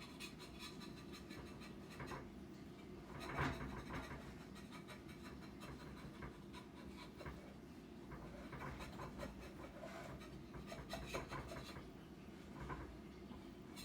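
Knife scraping around the inside of a metal cake pan to loosen the baked cake, in short irregular scrapes and clicks, with a louder knock about three and a half seconds in.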